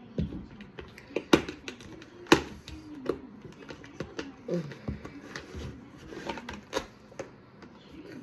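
Close-up mouth sounds of eating fufu: chewing and wet lip smacks, with a run of sharp clicks, the loudest two a little after one second in and a little after two seconds in.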